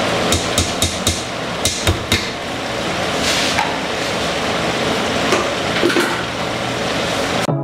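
Sharp knocks of a plastic colander and wooden spoon against an aluminium cooking pot as rice is tipped into it, a quick run of them in the first couple of seconds, over a steady hiss.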